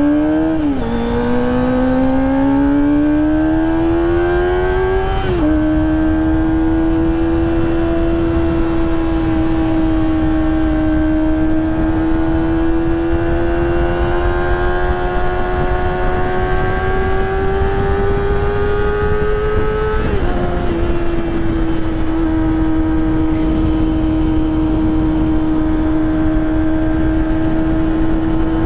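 Kawasaki ZX-25R's 250 cc inline-four through a Prospeed Shark high-mount exhaust, accelerating with its pitch climbing and dropping sharply at three upshifts: near the start, about five seconds in and about twenty seconds in. After the last shift it holds a steady note, with a rush of wind underneath.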